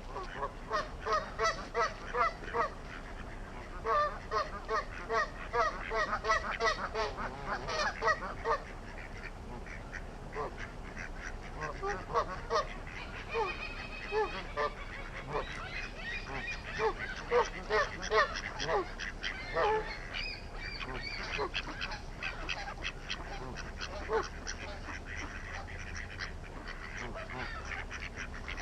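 A flock of geese honking: fast, repeated honks in two runs over the first eight seconds or so, then scattered honks and calls further on.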